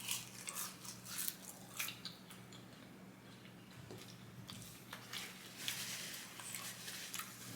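Close-miked eating: wet chewing and lip smacks of fast food, in clusters of short clicks, over a faint low steady hum.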